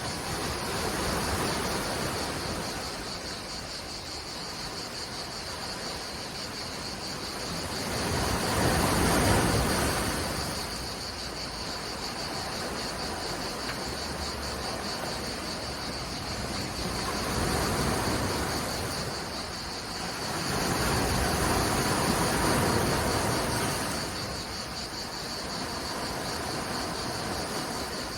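Sea waves breaking and washing back in slow swells, about four surges, under a steady high-pitched chorus of cicadas.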